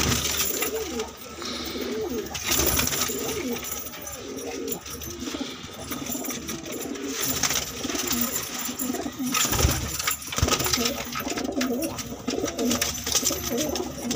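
Domestic pigeons cooing, several birds at once in overlapping, wavering coos throughout, with a few low thumps about ten seconds in.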